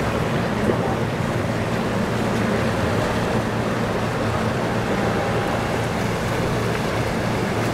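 Powerboat engines running with a steady low drone, over the wash of surf and wind.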